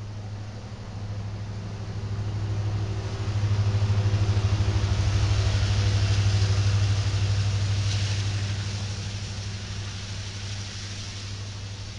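A Kansas City Southern diesel locomotive, working as a mid-train distributed power unit in an intermodal train, passes close by. Its engine's low steady drone swells to its loudest about four to seven seconds in and fades after, over the rolling noise of steel wheels on the rails.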